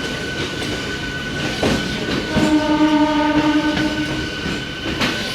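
Train running on the tracks, with a horn sounded once and held for about two seconds near the middle.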